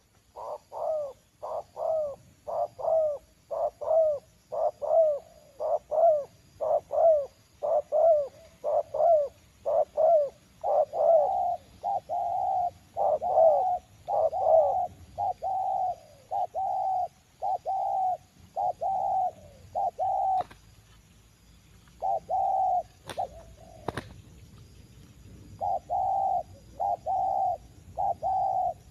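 Spotted dove cooing in a long, steady series of notes, about two a second. The early notes rise and fall in pitch and the later ones are flatter. The cooing pauses for a few seconds near the end, when two sharp clicks are heard, then resumes.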